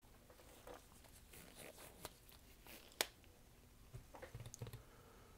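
Faint scattered rustles and small clicks, with one sharp click about three seconds in and a quick run of small knocks near the end, as of something being handled.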